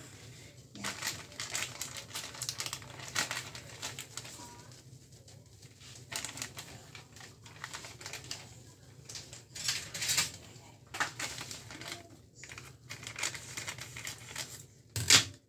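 Plastic bag crinkling and rustling in irregular crackles as it is handled and pulled at. A sharp snip of scissors cutting the bag open near the end is the loudest sound.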